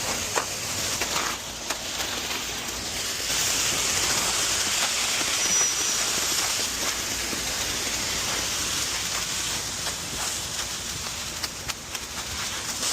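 Wet concrete pouring out of a mixer truck's chute: a steady rushing hiss with a few scattered small clicks.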